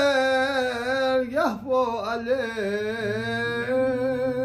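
An old man singing a Balti qasida (devotional poem) unaccompanied, drawing out long, wavering held notes, with a short break about a second and a half in. A low steady hum joins underneath about three seconds in.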